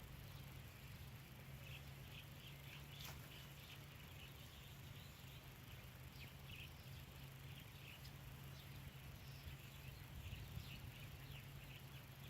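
Near silence: faint outdoor ambience with many short, high chirps scattered throughout over a steady low hum.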